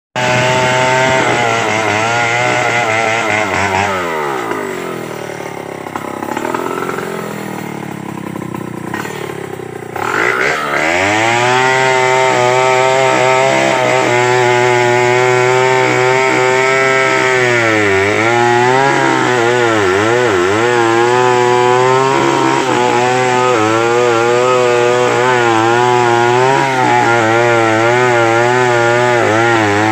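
Stihl 070 two-stroke chainsaw cutting into a giant meranti trunk at full throttle. About four seconds in it drops back to a lower idle for several seconds, then revs up again at about ten seconds and runs on in the cut, its pitch dipping and recovering a few times under load.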